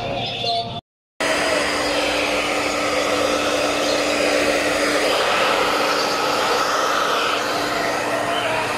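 Electric hair dryer blowing steadily with a faint hum, drying a wet long-haired kitten's fur after its bath. It starts after a brief silent break about a second in.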